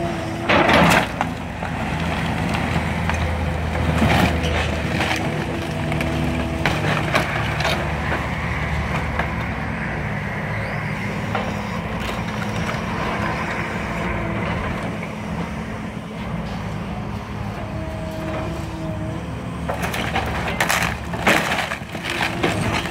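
Heavy machinery engine running steadily while the house's wood cracks, splinters and is crushed. The loudest crashes come about a second in and near the end, with smaller cracks between.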